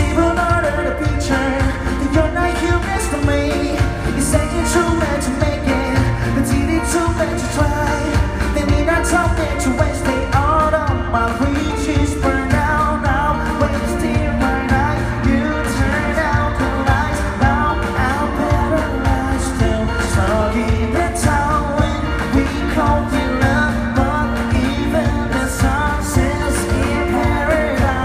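Live pop-rock band performance with a male singer singing over drums and guitar at a steady beat.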